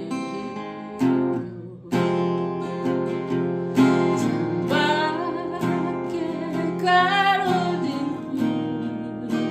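Acoustic guitar strummed in chords, with a voice singing the melody and two held notes sung with vibrato around the middle.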